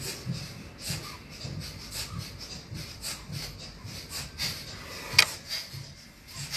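Kapalbhati breathing: rapid, rhythmic, forceful exhalations through the nose, about two to three a second, each one pushed out by a sharp pull of the belly. A single sharp knock about five seconds in.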